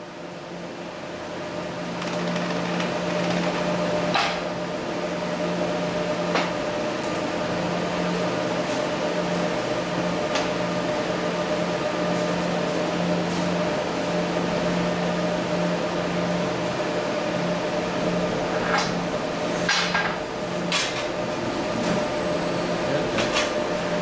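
Steady electrical hum with a fan-like rush from the stud welding equipment, building up over the first two seconds, broken by a few sharp metal clinks and knocks.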